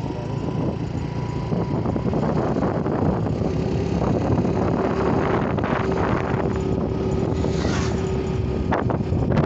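Wind rushing over the microphone of a moving motor two-wheeler, with its engine running underneath. A steady hum joins in about four seconds in and holds until near the end.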